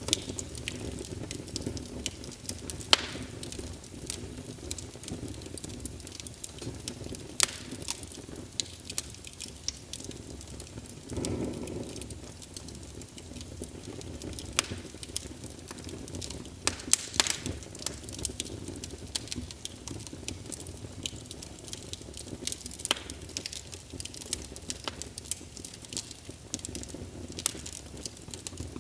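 A fire burning: a steady low rumble with frequent sharp crackles and pops at irregular intervals, and a brief louder surge of flame about eleven seconds in.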